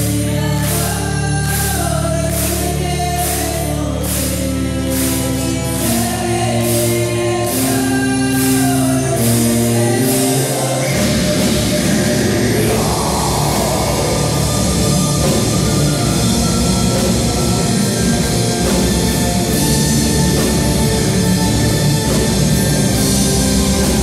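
Folk-metal band with symphony orchestra and vocal group performing: voices singing over held orchestral chords and a steady drum beat, shifting about eleven seconds in to a denser, heavier full-band passage.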